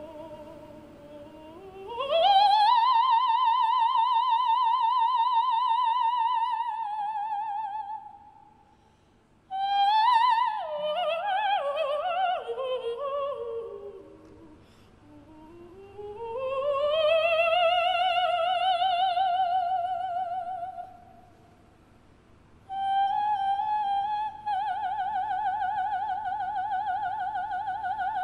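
Operatic soprano singing slow, sustained high notes with wide vibrato, sliding up into a long held note, then a descending run, then more long held notes, over a very soft accompaniment that drops out in the short gaps between phrases.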